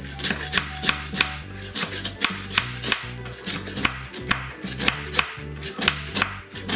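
A knife scraping and stripping bark off a decayed wood log, the peeling of a beetle egg-laying log, in quick, regular strokes about three a second.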